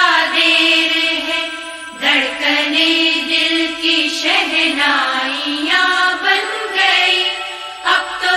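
Background music: a song with a voice singing a wavering melody over steady instrumental backing, in phrases of a couple of seconds each.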